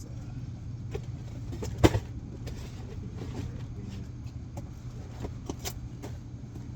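Boxes and snack packages being shifted around inside a car: scattered knocks and clicks with one loud thump about two seconds in, over a steady low hum.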